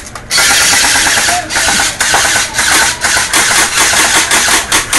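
Airsoft rifles firing on full auto at close range, a fast mechanical rattle that comes in several bursts with short breaks.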